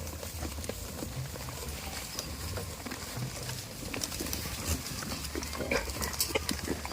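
Goats at close range making scattered clicks, knocks and rustling sounds, with no clear bleats, over a low steady rumble.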